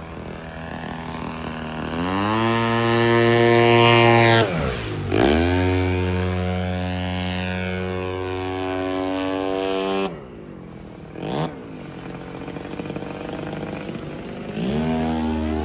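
Radio-controlled model airplane's motor and propeller in flight. The pitch climbs about two seconds in as the throttle opens. Around five seconds in the pitch dips sharply and comes back. It drops back about ten seconds in, swoops briefly once more, and rises again near the end.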